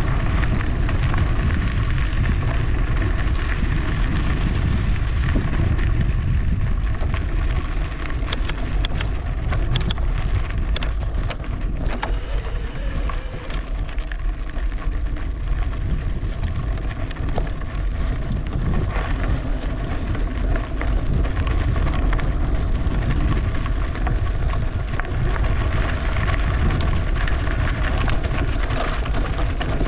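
Steady low wind rumble on the microphone while riding an e-bike along a trail, mixed with rolling noise, and a few sharp clicks about eight to eleven seconds in.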